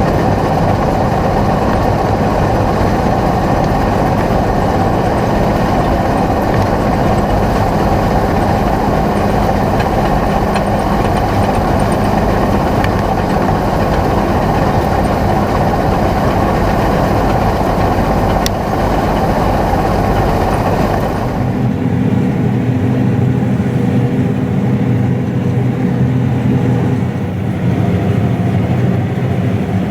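Heavy diesel farm machinery running steadily with a dense mechanical rush. About two-thirds of the way through, the sound changes abruptly to a smoother engine drone with clear steady tones.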